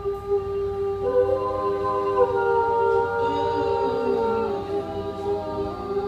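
Small mixed a cappella vocal group singing long, held chord notes in close harmony, with more voices joining about a second in.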